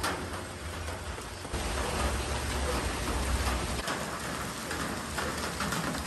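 Steady rain falling, a dense even hiss of drops, with a low rumble underneath that swells through the middle.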